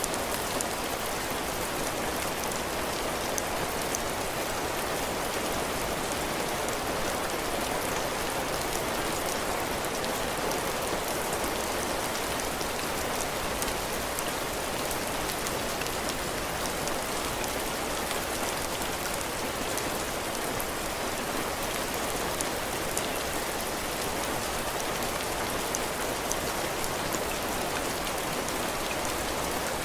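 Heavy rain falling steadily on a cabin porch, drops hitting the roof and the ground, with fine drop patter on top.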